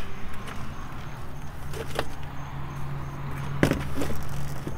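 Tripod and selfie stick being handled and set up, with a few short clicks and knocks of metal and plastic gear, the loudest about three and a half seconds in, over a steady low hum.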